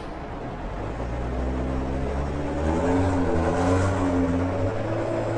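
BMW M340i's 3.0-litre turbocharged inline-six accelerating, its exhaust note rising gradually in pitch and loudness from about a second in.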